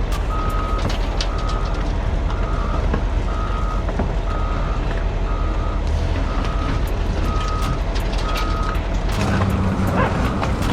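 A heavy vehicle's reversing alarm beeping steadily over a running diesel engine, a bit more than once a second. The beeping stops about nine seconds in and the engine note changes and grows a little louder.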